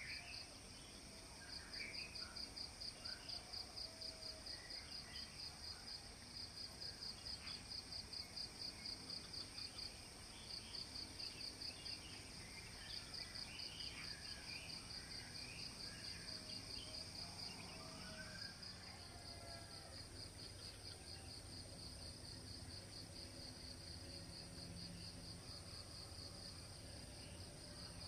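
Dawn chorus over rice paddies: insects chirping in a steady pulsing rhythm of about three or four pulses a second over a constant high insect whine, with scattered bird calls, all faint.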